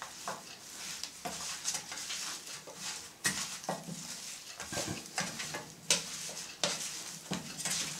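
Hands mixing partly frozen strips of salted meat in a stainless-steel tray: soft handling noise with scattered clicks and knocks of meat and fingers against the metal.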